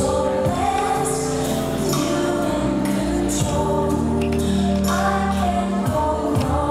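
Slow gospel-style song with singing over long held chords, with a few soft percussion hits, played through the hall's loudspeakers.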